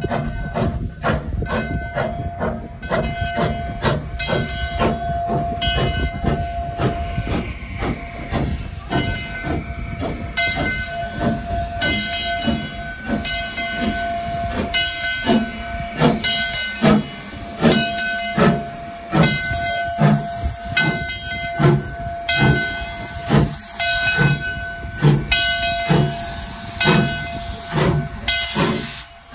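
Steam locomotive No. 29 moving slowly under steam: hissing steam with a regular, rhythmic beat that grows stronger through the second half.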